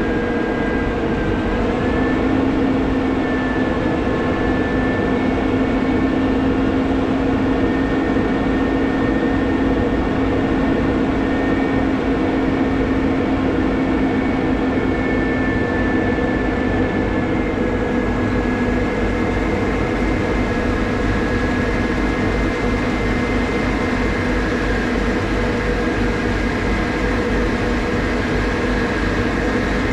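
Crane's engine running steadily with a held whine while it hoists a grain dryer fan; the pitch steps up slightly about two seconds in and drops a little about two-thirds of the way through.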